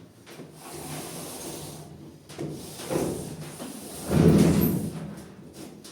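Irregular scraping and knocking of something being handled and shifted, the loudest scrape about four seconds in.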